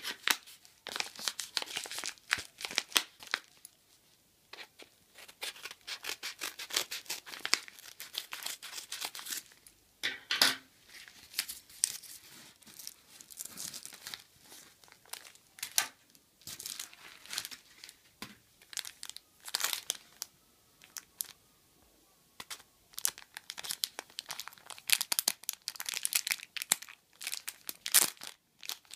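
Yellow padded paper mailing envelope being torn open by hand, in irregular bursts of tearing and crinkling with short pauses between them, followed by a clear plastic bag being crinkled.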